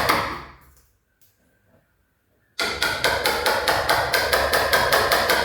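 Hammer striking a wood chisel in quick, even blows, about four or five a second, as a mortise is cut into a plywood door. The blows die away just after the start, there are about two seconds of near silence, then they resume abruptly.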